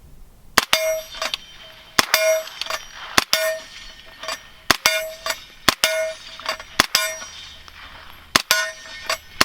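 Suppressed 9mm shots from a SIG MPX fitted with an AAC Ti-Rant 9 suppressor, fired slowly at about one a second. Each shot is followed by a ringing ping from a steel target being hit.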